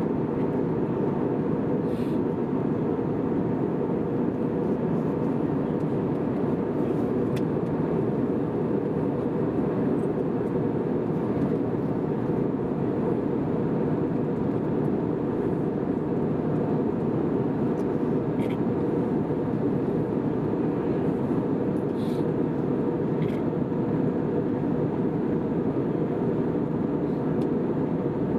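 Steady in-flight cabin noise of an Airbus A320 during descent: an even, unchanging rush heard from a window seat.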